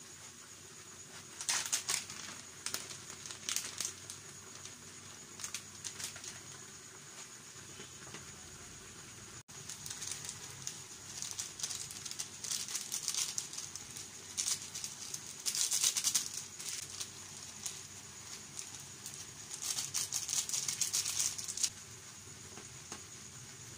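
Instant noodles being stirred with a spatula in a frying pan of hot water, giving irregular bursts of wet crackling and scraping between quieter stretches.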